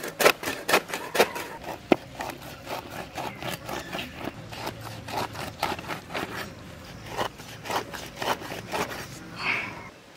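A blade sawing and scraping through raw stingray flesh and cartilage on a banana leaf: a steady run of short rasping strokes, about two to three a second.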